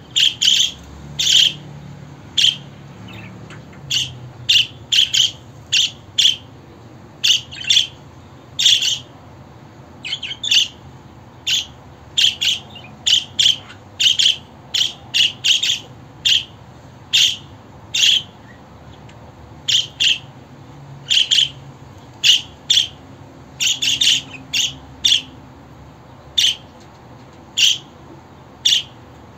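Budgerigar chirping: short, separate chirps, about one or two a second, in irregular runs with brief gaps between them.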